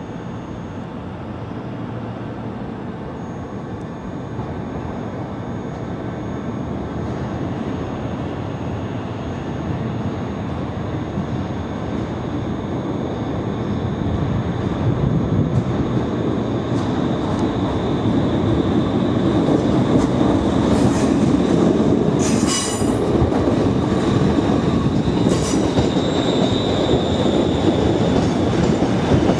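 Class 380 electric multiple unit pulling slowly into the platform, its running noise growing steadily louder as it nears, with a thin steady high whine. Two short high squeals come about three-quarters of the way through.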